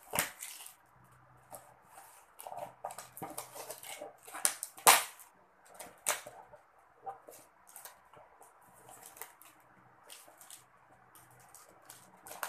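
Scissors snipping and plastic packaging wrap crinkling as a wrapped box is cut open: an irregular run of sharp clicks and rustles, with the loudest snap about five seconds in.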